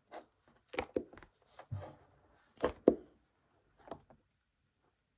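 Homemade slime being squeezed and poked for ASMR close to the microphone: a run of irregular sharp pops and clicks, the loudest about three seconds in, with short quiet gaps between.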